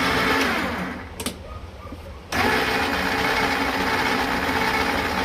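Electric drive motor and gearbox of a children's ride-on scooter whirring as the throttle is pressed, now working after its faulty switch was replaced. The whir dies away about a second in and starts again a little after two seconds, rising briefly in pitch, then runs steadily.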